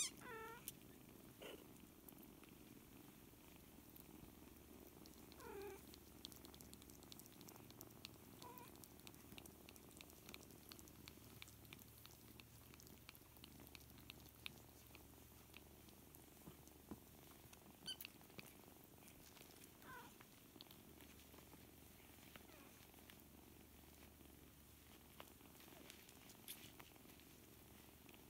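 Faint, steady purring from a mother cat and her 4-week-old kittens. A few short, high squeaks that drop in pitch come from the kittens now and then.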